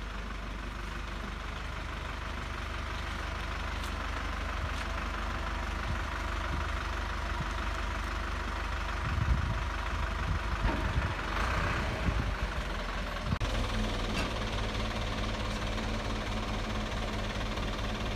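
Diesel engine of an Isuzu truck running steadily to drive its UNIC truck-mounted crane, while the crane hoists a heavy root-balled tree. There are a few knocks around the middle, and the engine note shifts about two-thirds of the way through as the lift begins.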